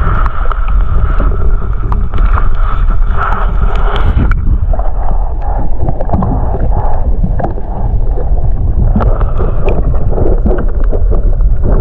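Heavy wind rumble buffeting the microphone, with small scattered clicks and knocks. A steady higher hum underneath stops about four seconds in.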